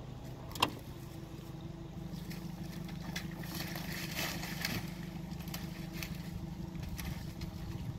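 Idling boat motor giving a steady low hum. There is one sharp click about half a second in, and a stretch of hiss with light clicks near the middle.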